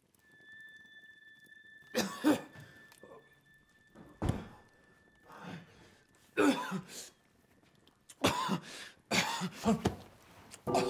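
A man coughing and choking in repeated hard fits, with short gasps between them. A thin, steady high tone sounds through the first half.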